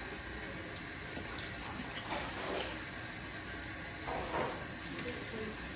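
Steady hiss of background noise, with a couple of faint muffled sounds about two and four seconds in.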